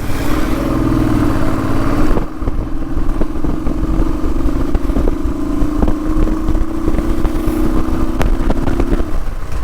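Motorcycle engine running steadily under load on an uphill ride, with a low rumble and scattered short knocks and rattles. Its note breaks off briefly near the end.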